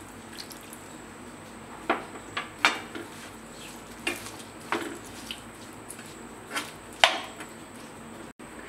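Stainless steel spoon knocking and scraping against a nonstick frying pan, about seven separate clinks, while stirring fish pickle in its vinegar and chilli sauce.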